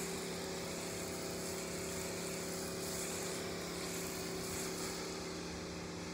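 Steady hum of a 12-volt soft-wash pump running, with the hiss of a spray from a small hose fitting landing on wet concrete.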